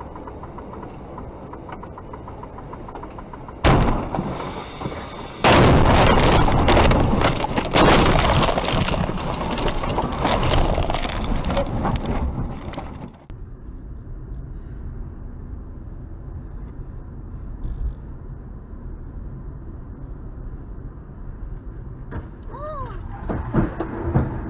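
Car crash recorded by a dashcam inside the car: a sudden impact about four seconds in, then a long, loud crashing and scraping as the car leaves the road and ploughs into roadside brush. It ends abruptly and gives way to quieter road and engine noise, with a brief squeal and a hit near the end.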